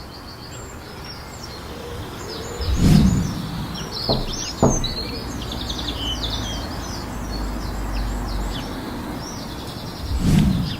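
Several birds chirping and trilling together over a low steady background rumble. A dull low thump comes about three seconds in and again near the end, with two short knocks in between.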